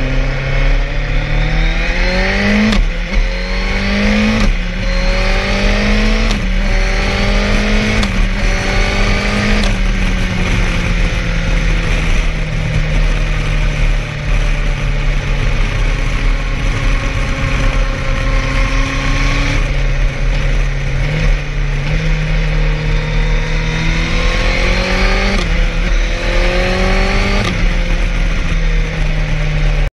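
Suzuki GSX-R1000R inline-four through an aftermarket exhaust, accelerating hard with a run of quick upshifts, each a rising howl cut by a drop in revs, over the first ten seconds. It then holds steady revs for a long stretch before two more upshifts near the end.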